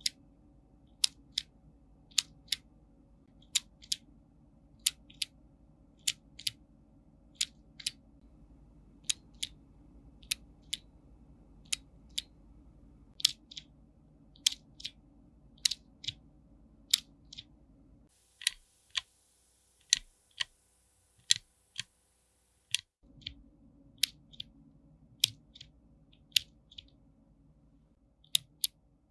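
Clicky mechanical keyboard switches pressed one keystroke at a time, each press giving a sharp, crisp click at a slow, uneven pace of about one to two a second.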